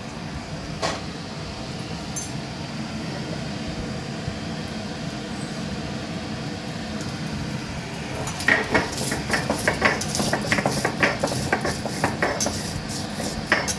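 Stone roller (nora) crushing and grinding dry-roasted whole spices and dried chillies on a flat stone slab (shil). A rapid run of sharp knocks and gritty scrapes starts about eight seconds in, over a steady background hum.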